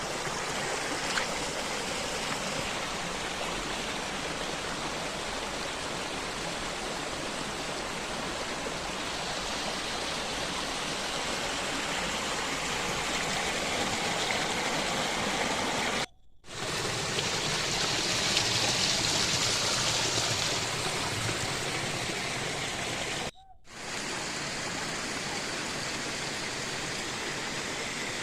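Steady rush of flowing water, broken twice by brief hard cuts, the second stretch a little louder than the first.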